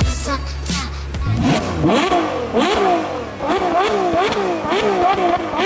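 Ferrari 812 Superfast's naturally aspirated V12 being revved up and down in quick repeated blips, the pitch climbing and dropping about twice a second.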